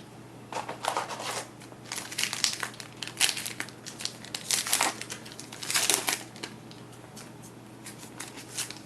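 Trading-card pack wrapper crinkling and being torn open by hand, in irregular crackling bursts that die down after about six seconds.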